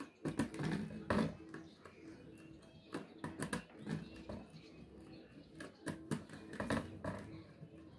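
Irregular small clicks and taps of a screwdriver working the screw terminals on an access-control circuit board as wires are fitted, with light handling noise.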